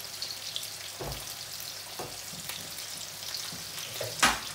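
Boal fish steaks frying in hot oil and a tomato masala cooking give a steady sizzle and crackle. A spatula stirring the masala knocks against the stainless steel pan a few times, loudest near the end.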